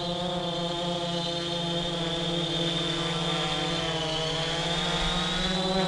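AEE AP9 brushless quadcopter flying low, its four motors and propellers making a steady buzzing hum with a high whine on top. The pitch dips slightly about four seconds in, then climbs again near the end.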